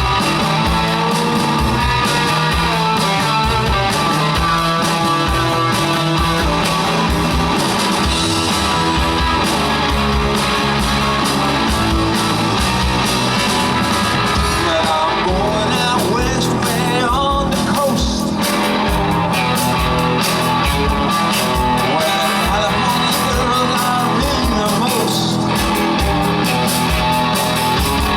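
Live rock band playing a surf-rock cover, with electric guitars over bass and drums at a steady, driving beat.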